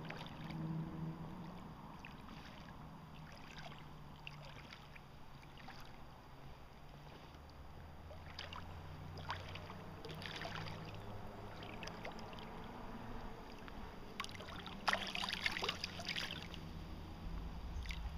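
Water splashing and sloshing as a hooked salmon is drawn into the shallows, in scattered bursts with the loudest about three-quarters of the way through, over a faint low steady hum.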